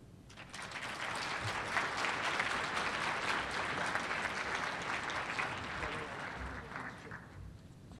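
Audience applauding, the clapping swelling up within the first second and dying away near the end.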